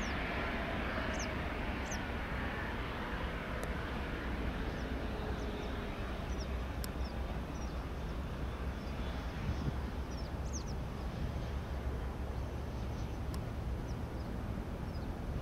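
Boeing 787-9 airliner's jet engines rumbling steadily as it rolls along the runway, with a faint tone sliding down in the first few seconds. Small birds chirp briefly now and then over it.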